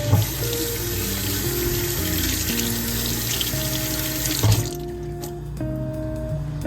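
Water running from a tap into a sink, shut off suddenly about four and a half seconds in, under background music.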